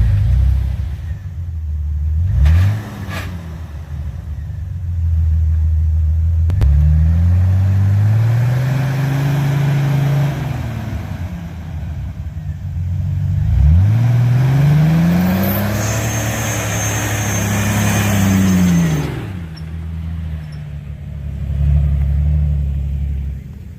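Off-road 4x4 engine revving hard several times, the pitch climbing and falling back with each burst of throttle, with a rushing noise over the middle revs.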